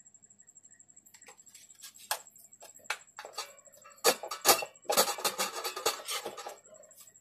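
Scattered light clicks and taps, then from about four seconds in a cluster of loud knocks and scraping as an LED bulb's plastic housing is handled and pushed into a brass lamp holder.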